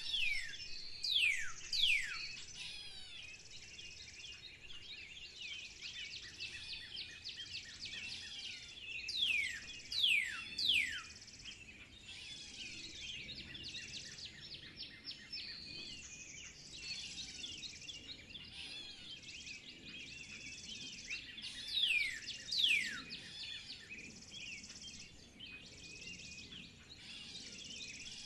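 A chorus of songbirds chirping and twittering continuously. One louder bird gives sharp whistles that sweep steeply downward in pitch, in groups of two or three: near the start, about ten seconds in, and again about twenty-two seconds in.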